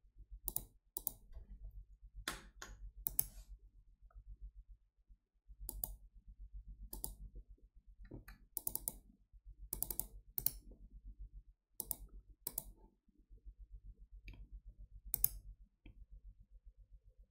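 Computer mouse buttons clicking, about a dozen and a half sharp clicks at irregular intervals, some in quick pairs, over a faint steady low hum.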